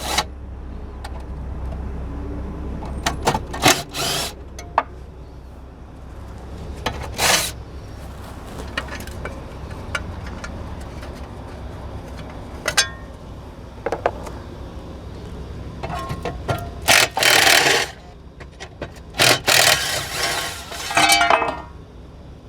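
Hand tools working on the underside of a car: scattered metallic clicks and knocks, with three longer scraping bursts, the longest near the end, over a steady low hum.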